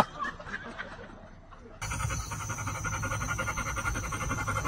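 A black Labrador panting fast and steadily, starting about two seconds in, over the low hum of a moving vehicle's cabin.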